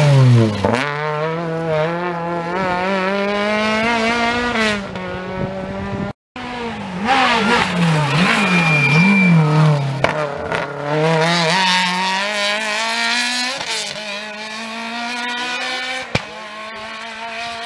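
Rally cars at full race pace. A Peugeot 206 rally car passes close, its engine note dropping as it goes by, then climbs in pitch as it accelerates away. After a cut a second rally car's engine revs up and down through gear changes, then rises steadily through the gears as it pulls away.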